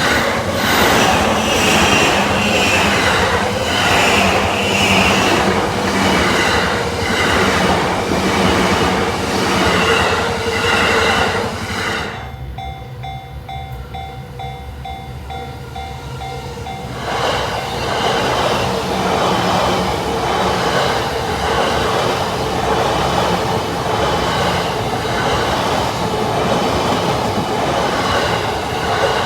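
JR Yamanote Line electric trains passing over a level crossing, wheels clattering rhythmically over the rails. About twelve seconds in, the first train clears and the crossing's warning bell is heard ringing on its own, a repeating ding about twice a second, before a second train passes about five seconds later.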